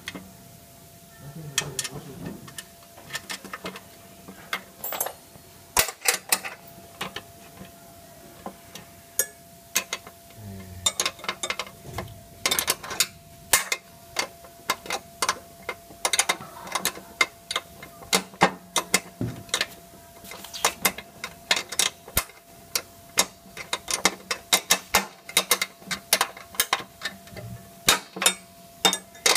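Spanner with a ratcheting end clicking as it turns a nut on a bolt: a run of short sharp clicks, sparse at first and coming faster and denser in the second half, over a faint steady hum.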